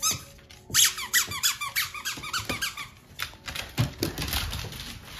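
Squeaky dog toy squeezed over and over, a quick run of high squeaks for about three seconds, followed by a few knocks and rustling.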